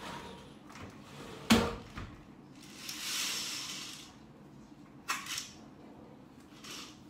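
A window shut with one sharp knock about a second and a half in, then the swish of curtain fabric being drawn across. A little after five seconds there are two quick clacks as the curtain is pulled along its rail.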